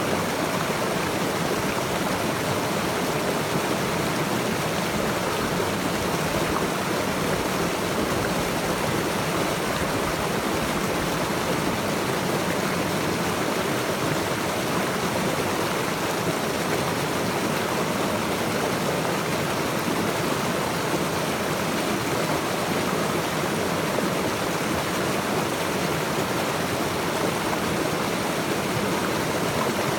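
Water of a stream rushing and burbling over rocks, a steady, unbroken flow.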